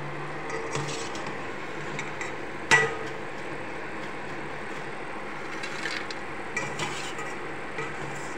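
Metal utensils clinking against steel dishes: one sharp clink nearly three seconds in and several lighter taps later, over a steady background hiss and hum.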